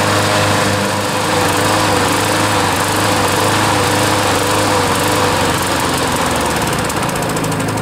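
Walk-behind lawn mower's small engine running steadily at an even speed.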